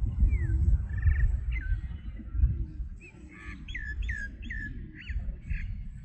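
Small birds chirping: a few scattered downward-sliding chirps, then a quick run of about six in the second half. A steady deep rumble runs underneath.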